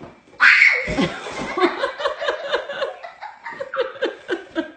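A person suddenly bursting into loud laughter about half a second in, then laughing on in quick, repeated pulses.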